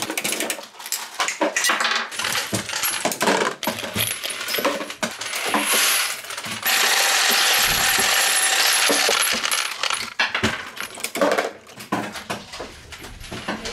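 Dillon 1100 progressive reloading press being cranked through 9mm rounds: fast, irregular metallic clinks and clatters of the press and brass cases. A steady rushing noise joins in from about seven to ten seconds in.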